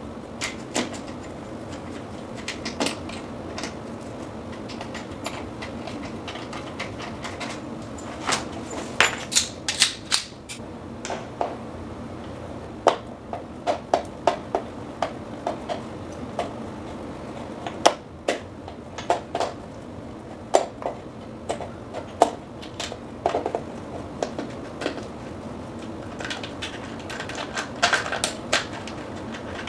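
A 6-in-1 screwdriver's flathead bit working on the metal brackets of a vertical-blind head rail: irregular sharp clicks and taps of the tool on metal, coming in quick flurries of several clicks at a time.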